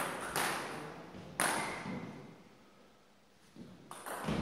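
Table tennis ball clicking sharply off bats and table: two pings at the start, another about a second later, then a lull of about two seconds before quicker hits resume near the end.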